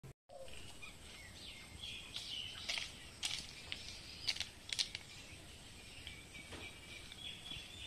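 Birds chirping and whistling over quiet rural background noise, with a few sharp short calls about three to five seconds in and a faint steady high-pitched tone.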